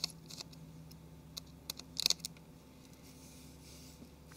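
Light, scattered clicks and taps of a small Phillips screwdriver undoing a tiny screw on a tablet's loudspeaker and of the screw and tablet being handled, the loudest cluster of taps about two seconds in.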